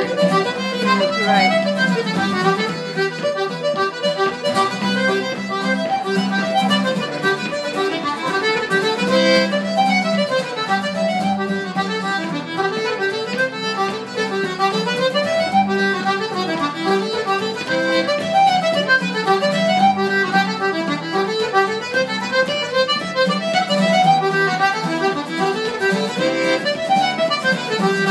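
Irish traditional dance tune played live on a squeezebox, its quick running melody carried over steady strummed chords on an acoustic guitar.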